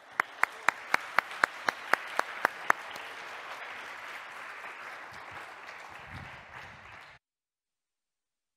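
Audience applauding, with one clapper standing out loudly at about four to five claps a second for the first few seconds. The applause carries on, then cuts off abruptly about seven seconds in.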